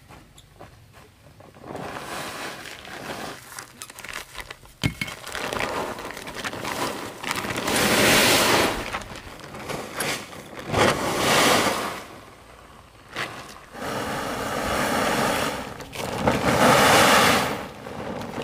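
Dried cassava chips sliding and rattling down a plastic tarp as its edge is lifted, together with the tarp rustling and crinkling. It comes in four loud bursts of a second or two each.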